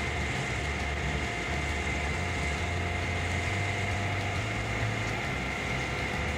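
Heavy forestry harvester's diesel engine running steadily, a low rumble with a constant high whine over it.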